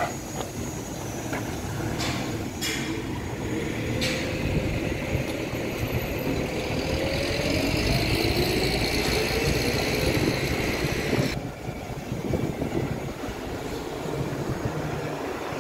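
Motor vehicle engine running, its pitch rising slowly over several seconds as it speeds up, over a steady low traffic rumble; a hiss stops suddenly about eleven seconds in.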